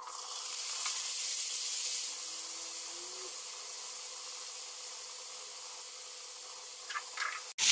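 Marinated chicken pieces sizzling in hot oil on an iron tawa as they are laid onto the griddle: a steady high hiss that eases slightly over the seconds.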